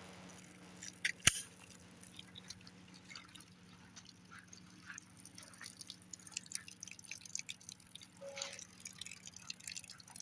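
Water dripping and splashing from plastic water jugs just shot through with a 5.7 round, with one sharp knock about a second in.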